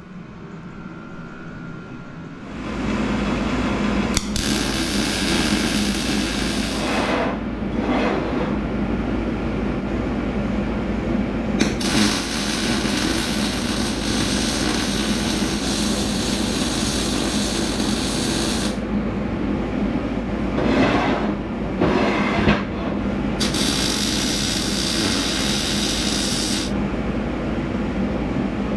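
Millermatic 255 MIG welder arc welding out tacked joints on a steel box: a steady crackling sizzle that starts about two and a half seconds in, with a low hum underneath, broken by several short pauses between welds.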